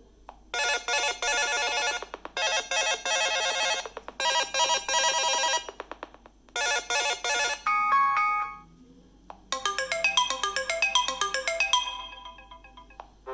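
BlackBerry Key2 stock phone tones playing. One ringtone repeats its short phrase of quick, bright notes four times. A brief chime of a few steady notes follows, then a melodic run of notes that fades out near the end.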